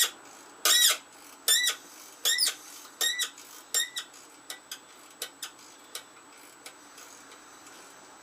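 A dry fastener on a small Tecumseh engine squeaking as it is turned by hand: a run of short, high, mouse-like squeaks, each rising and falling in pitch, about one every three-quarters of a second. After about four seconds they fade into light clicks.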